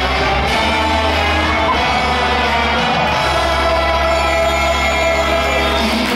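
Baseball stadium cheer music played over the loudspeakers, steady and loud, with the fans singing and shouting along.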